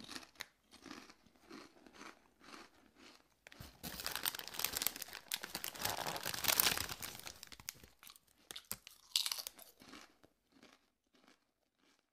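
A person eating something crunchy: steady chewing strokes, then a longer spell of loud, dense crunching in the middle, and one more sharp crunch before the chewing tapers off.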